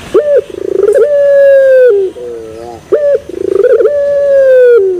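Young puter (Barbary dove), about three months old, cooing: two full coo phrases, each a short note, a rolling rise, then a long held coo that falls slightly at its end, followed by a wavering trail of notes.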